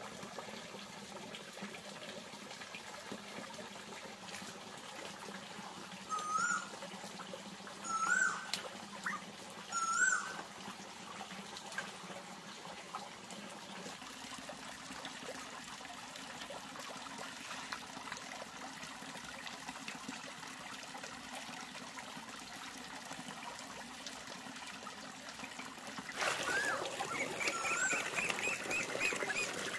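A thin stream of water trickles steadily. About 26 seconds in it grows louder, splashing into a metal basin as hands wash in it. Three short chirping animal calls, each rising then dipping, come about two seconds apart a third of the way in, and more chirps come near the end.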